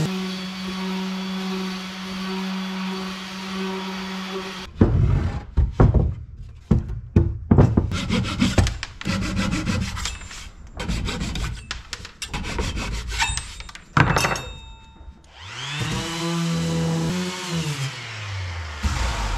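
Random orbital sander running steadily on a wooden panel, switched off about five seconds in. Irregular rubbing strokes and knocks on wood follow. Near the end the sander runs briefly again and winds down.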